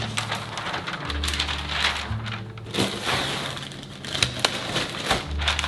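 Sheets of parchment paper crinkling and rustling as they are handled, then a plastic zip bag rustling as it is opened, over background music.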